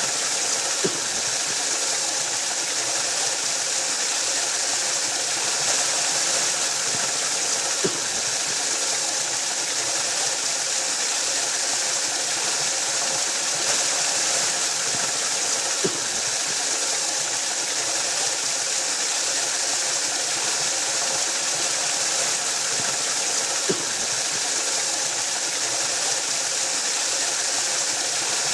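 Waterfall: a steady rush of falling water, unbroken, with a faint brief click about every eight seconds.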